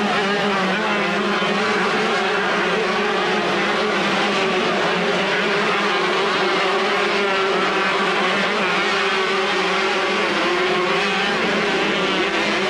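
Several two-stroke motocross bikes racing, their engines revving up and down in a constant overlapping drone.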